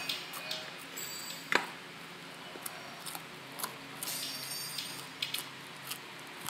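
Light clicks and ticks as crisp French fries are handled in a wire-mesh frying basket, with one sharper click about a second and a half in.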